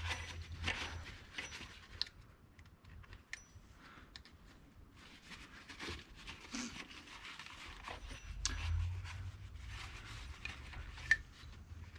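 Faint rubbing and scratching of a rag wiping bar oil out of a chainsaw's clutch and sprocket housing, with scattered small clicks of handling.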